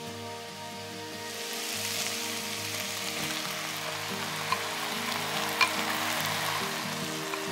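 Chopped carrots, celery and white beans sizzling in a hot enamelled cast-iron pot as diced tomatoes are tipped in. The sizzle grows louder about two seconds in, with a few sharp clicks in the second half.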